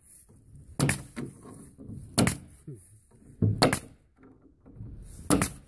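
Pneumatic trim nailer firing four times, about a second and a half apart, as it drives nails through wood trim. Each shot is a sharp snap with a short hiss of air.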